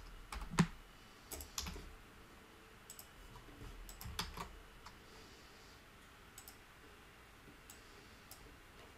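Scattered computer keyboard keystrokes and mouse clicks, a few isolated clicks spread out with gaps between them, the loudest about half a second in.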